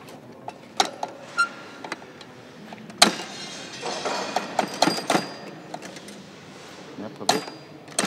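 Irregular metallic clinks and knocks of hand tools worked against a small metal contraption, a few of them ringing briefly, the sharpest about three seconds in and a cluster a second or two later.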